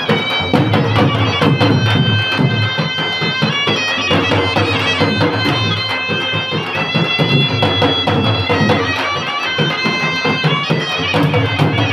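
Village wedding band music: a small brass trumpet playing a reedy melody of held notes over steady stick-beaten double-headed drums.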